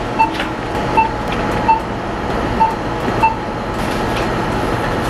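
Self-checkout barcode scanner beeping as items are scanned: five short, clear beeps at uneven intervals, under a second apart, over steady background noise.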